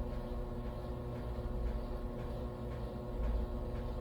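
Steady electrical hum with a low rumble underneath and a few faint light ticks.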